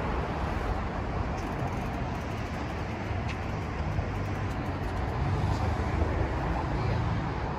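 Steady city traffic noise with a low rumble.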